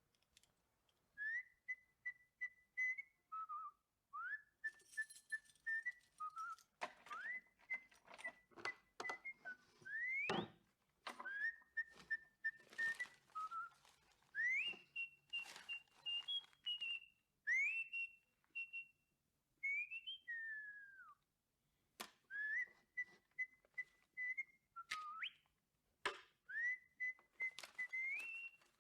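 A man whistling a tune through pursed lips, in short phrases of held notes, many entered with a quick upward slide and a few dropping away. Clicks and rustles of objects being handled come between the phrases.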